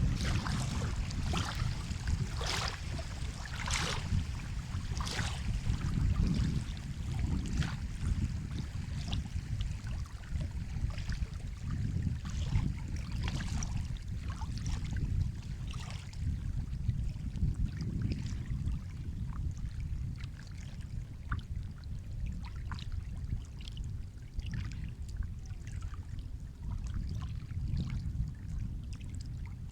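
Sea water sloshing and splashing over a steady low rumble of surf. The splashes come thickest in the first several seconds, then thin out.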